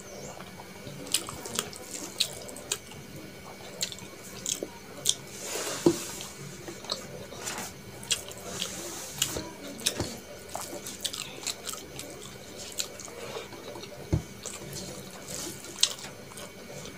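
Close-miked wet squishing and smacking as rice is mixed with curry by hand on a steel plate and eaten, with many short wet clicks scattered throughout.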